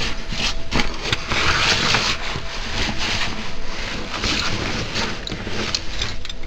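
Continuous scraping and rubbing of a caver's suit and gear against rock, with many small knocks, as the caver squeezes through a narrow cave passage.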